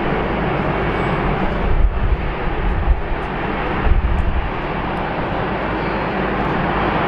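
Airbus A380's four Rolls-Royce Trent 900 jet engines running at taxi power: a steady rushing noise as the airliner taxis. Brief low rumbles come about two and four seconds in.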